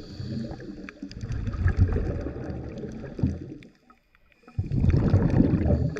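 Scuba diver's regulator heard underwater: long surges of rumbling, gurgling exhaled bubbles, with a short quiet break about four seconds in, when the breath out stops.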